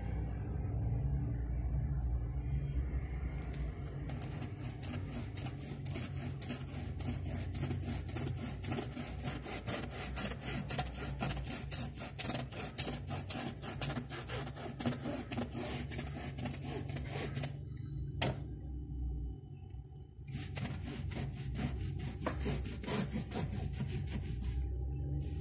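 Wet gesso being brushed across a board in quick back-and-forth strokes, a steady scratchy rubbing. The strokes break off for about two seconds about three quarters of the way through, then resume, over a low steady hum.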